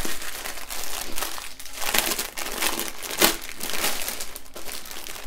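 Small plastic bags of diamond-painting drills crinkling as they are handled and shuffled. It is an irregular run of crackles, with the loudest a little past the middle.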